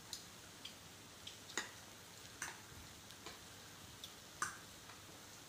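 Metal spoon clinking lightly against a metal bowl and plate while eating: a handful of short, irregular taps, the two loudest about a second and a half in and near the end.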